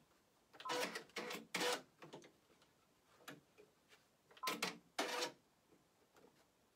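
Short mechanical clicks and rattles from rethreading a needle on a Brother PR 655 multi-needle embroidery machine. They come in two groups, about a second in and again near five seconds, with scattered small ticks between.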